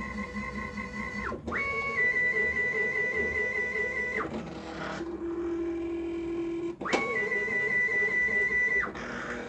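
Stepper motors driving the axes of a Shoptask lathe-mill-drill under LinuxCNC, during a homing run. The whine rises quickly to a steady high pitch, holds for a few seconds and falls away, then a lower, slower steady tone follows. A sharp click comes about 7 s in, and the high whine ramps up and holds again before winding down near the end.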